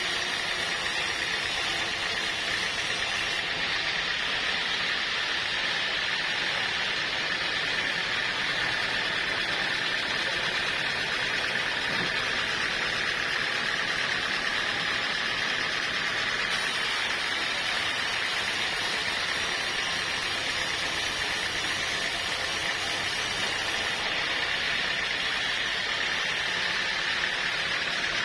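Sawmill saw running steadily, a continuous mechanical noise with a steady high-pitched whine.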